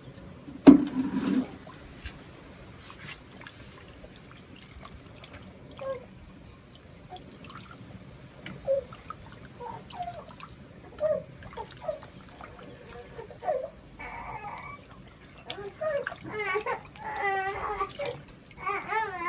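Liquid bubbling and trickling, with scattered short pops, then wavering high cries in the last few seconds.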